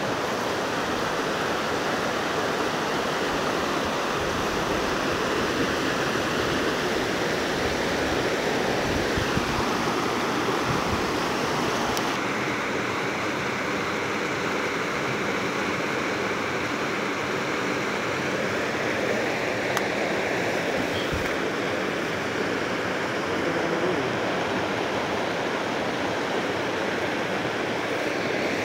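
Shallow, fast river rushing over boulders in white-water rapids, a steady wash of water noise.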